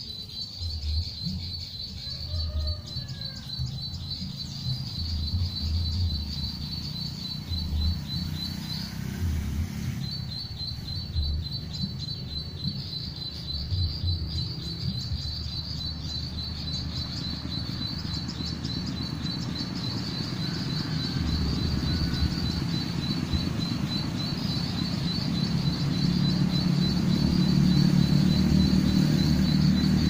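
Recorded call of the ciblek sawah played through an MP3 lure: a fast, even train of high chirping notes that breaks off about nine seconds in and resumes a second later. A low rumble runs underneath and grows louder near the end.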